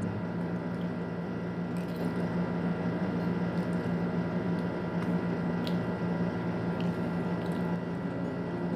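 A person eating spaghetti: soft chewing with a few light clicks of a fork, over a steady electrical hum.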